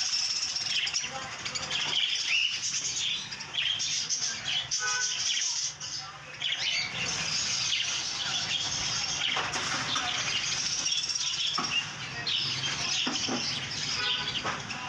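Budgerigars chirping and chattering together, a dense unbroken twittering with a few clearer short calls standing out.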